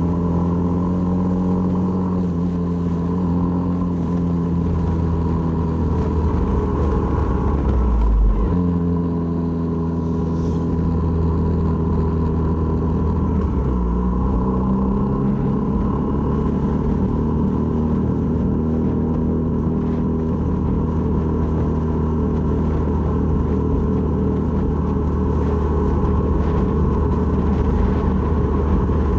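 Honda MSX125's single-cylinder four-stroke engine running while riding, a steady note that dips sharply and recovers about eight seconds in and drops lower again around fourteen seconds, as with gear changes.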